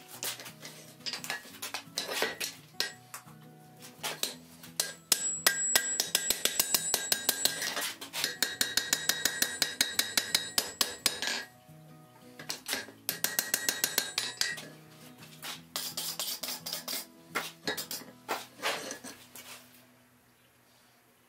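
Hand hammer striking a red-hot iron bar on an anvil: runs of quick, ringing metallic blows, several a second, broken by short pauses while the bar is checked. Soft background music plays underneath.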